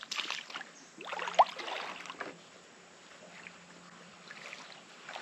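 Rubber hip waders wading through a shallow creek: sloshing, splashing steps in the water, loudest between about one and two seconds in, then quieter.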